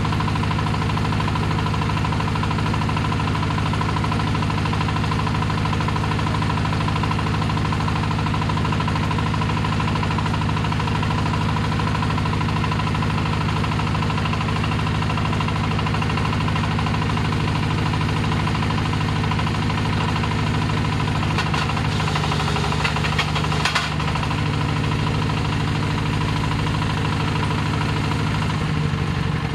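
25 HP diesel engine of a small hydraulic water-well drilling rig running steadily under load, with a short spell of clattering knocks a little over two-thirds of the way in.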